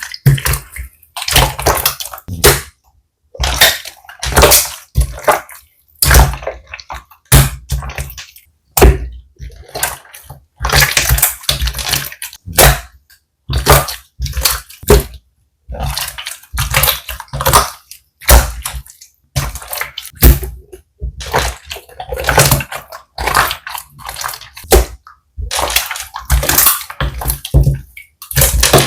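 Slime being squeezed and pressed by hand: wet squishing in repeated short bursts, about one a second, with brief silent gaps between.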